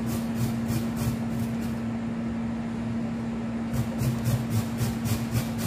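Raw squash being grated on a stainless steel box grater: rasping strokes about three or four a second, stopping for about two seconds in the middle and then going on again. A steady low hum runs underneath.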